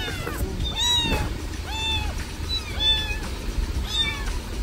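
A very young kitten mewing repeatedly, about five short high-pitched mews roughly a second apart, while being fed from a syringe. A low rumble runs underneath.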